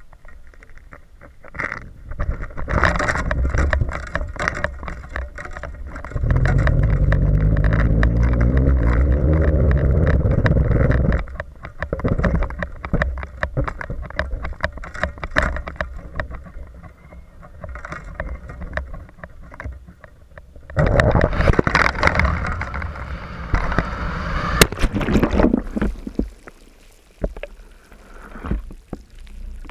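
Wind and water noise on a camera riding in a cast basket-fishing rig. A long steady rush of air comes early on, then rough surges of splashing and gurgling water as the basket hits the sea and sinks below the surface.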